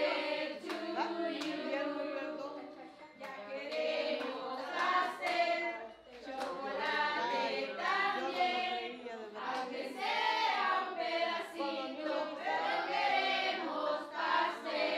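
A group of adults and children singing a birthday song together in unison.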